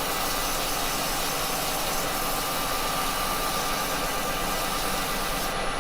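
Axminster wood lathe running steadily with the bowl spinning, an even whirring hiss with a faint steady hum. A brighter upper hiss stops shortly before the end.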